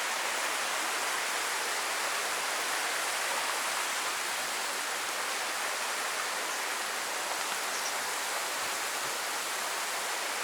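Waterfall water rushing and splashing in a steady, even hiss.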